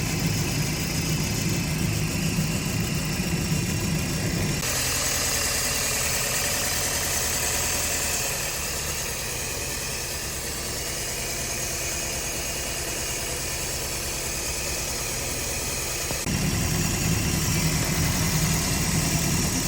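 Car engine idling with a misfire. About four seconds in the low rumble drops and a higher hiss comes up, and the low rumble comes back near the end.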